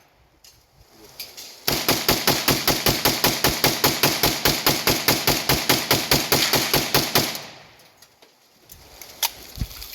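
AK-pattern rifle firing a rapid, even string of shots, about six a second, for roughly five and a half seconds as the magazine is emptied, then stopping. A few faint clicks come before the string and one sharp click near the end.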